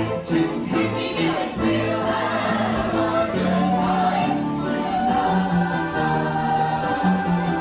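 Live stage-show music with the cast singing together over a bouncy two-beat accompaniment, which moves into long held notes about halfway through.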